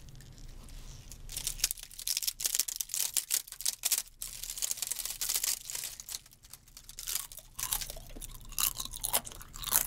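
Wet crackling and rustling of a large sheet of fresh miyeok seaweed handled in gloved hands close to the microphone, irregular and dense from about a second in.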